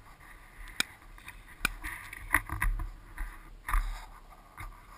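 Wind rumbling on the microphone with rustling and scuffing from outdoor handling, broken by two sharp clicks about a second apart near the start.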